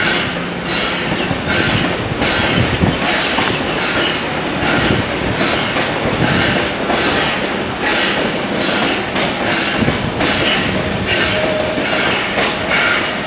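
NSWGR 32 class steam locomotive 3237 working its train, heard from a carriage: a steady beat of hissing exhaust chuffs, about one and a half a second, over continuous wheel and rail rumble.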